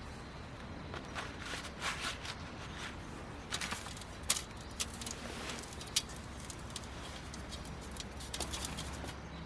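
Scattered light clicks and rustles, a few sharper ones about halfway through, over a steady low hum.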